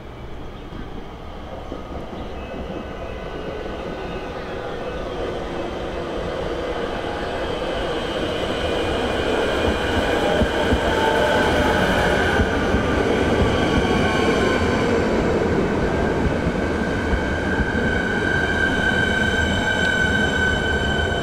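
Siemens Nexas electric suburban train pulling in and slowing along the platform, its rumble growing louder over the first half. Steady high-pitched tones come in around the middle and are strongest near the end as it brakes.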